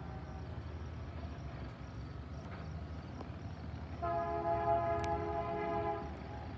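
BNSF freight locomotive's horn sounding a chord of several steady tones: a fading note at the start, then a louder blast about two seconds long beginning a little past halfway, over a low steady rumble.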